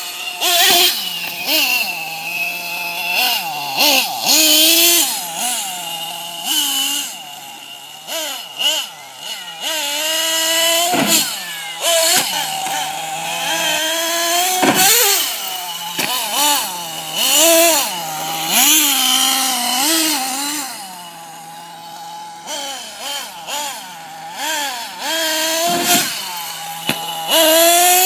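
HPI Savage XL 5.9 RC monster truck's small two-stroke nitro engine being driven hard, its pitch rising sharply on the throttle and dropping back again and again, with short steady idling stretches in between.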